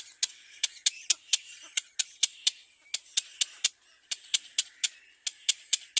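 Baby birds chirping in the nest: a rapid series of short, sharp, high cheeps, about four a second, in runs broken by brief pauses.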